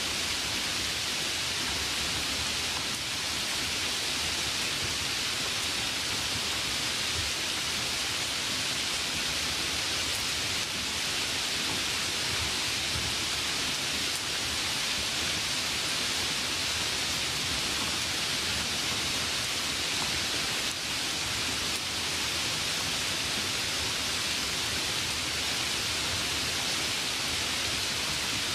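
A steady, even hiss with no pauses or changes, strongest in the upper-middle range.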